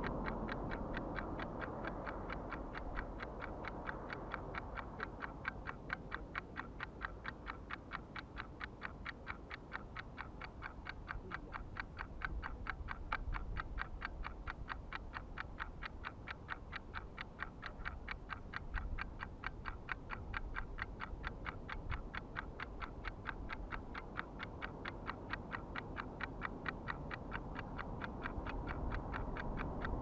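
Rapid, even ticking, several ticks a second, kept up steadily over a low background rumble.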